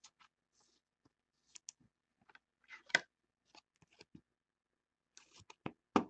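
Baseball trading cards being handled: faint, scattered rustles and light clicks as the cards slide and tap against each other, with a quick run of sharper clicks near the end.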